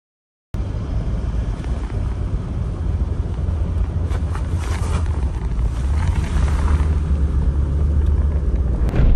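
Car in motion, with a steady low road rumble and wind hiss that starts abruptly about half a second in.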